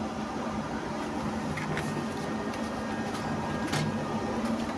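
Steady background hum and noise, with a few faint rustles and ticks of paper as a booklet's pages are handled.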